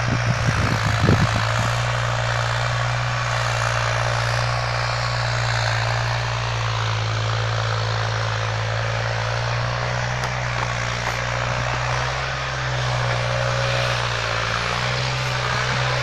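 A steady, unchanging low engine hum with a broad rushing hiss over it. A few brief knocks come in the first second and a half.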